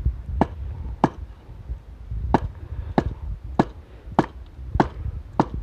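Firewood being chopped: eight sharp chopping strikes of a blade into wood, evenly spaced about every 0.6 s, with a pause of a little over a second after the second strike.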